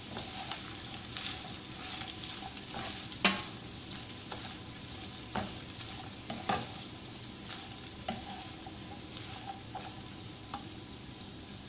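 Carrot, capsicum, peas and chicken sizzling in oil in a non-stick wok while a spatula stir-fries them: a steady sizzle with scattered knocks and scrapes of the spatula against the pan, the loudest about three seconds in.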